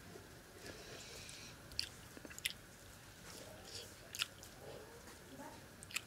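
A person chewing a mouthful of flattened-rice pulao and fish with the mouth close to the microphone: soft, wet chewing broken by four sharp smacks or clicks.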